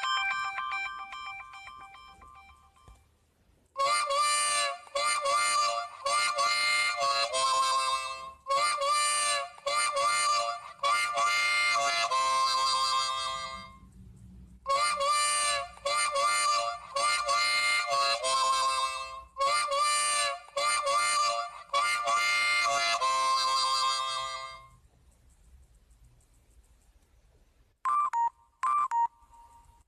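Smartphone ringtone: a short melody of about ten seconds, played twice with a brief pause between. The previous tone fades out at the start, and short beeps of the next tone begin near the end.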